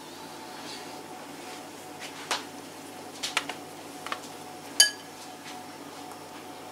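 Light clicks and taps of kitchenware as grated cheese is scattered by hand onto a pizza on a metal baking tray, with one sharp, ringing clink near the end.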